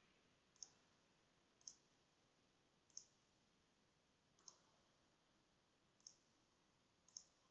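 Faint computer mouse clicks over near silence: six single clicks, spaced about a second to a second and a half apart.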